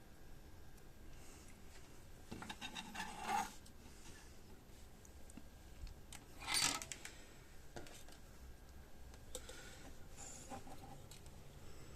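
Small handling noises at a workbench: a circuit board and components rubbed and scraped, with a longer scrape about two to three and a half seconds in and a shorter one near seven seconds, and a few faint clicks.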